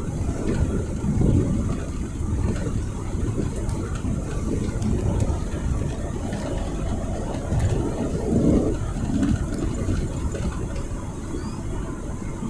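Car driving along a road: a steady low rumble of engine and road noise that swells and eases a little.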